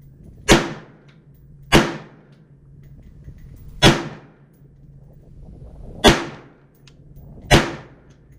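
Five single rifle shots from an AR-15, fired one at a time with about one to two seconds between them. Each shot trails off briefly.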